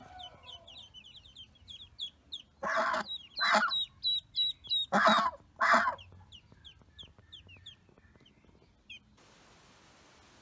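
Ducklings peeping continuously with many short, high, downward-sliding cheeps. A white domestic goose among them gives four loud, harsh calls in two pairs, about three and five seconds in. The peeping stops abruptly about nine seconds in, leaving a faint steady hiss.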